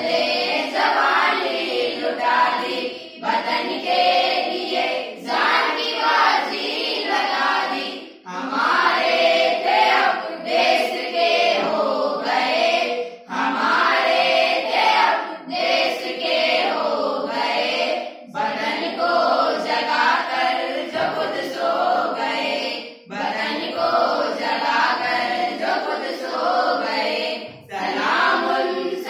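A group of schoolchildren, girls and boys together, singing a patriotic song in unison. The singing comes in phrases of a few seconds with short breaks for breath between them.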